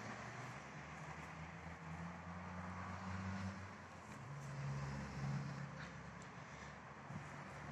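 A low, distant engine hum, steady and shifting in pitch about four seconds in, over faint outdoor background noise.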